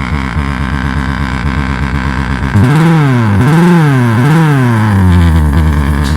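Underbone motorcycle idling with a 'big bike' sound-effect speaker wired to its rectifier, buzzing in pitch with the engine. About two and a half seconds in, it is revved three times in quick succession, the pitch rising and falling with each rev. It then holds at a higher steady speed.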